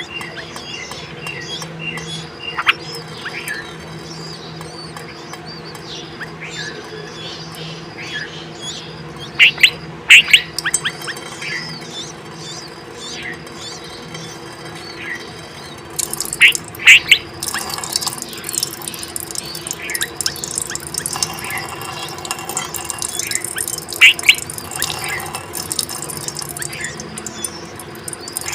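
Bulbul calls and chirps at the nest while feeding chicks: scattered short chirps with louder bursts of calls about ten seconds in, around seventeen seconds and near twenty-four seconds, over a faint steady hum.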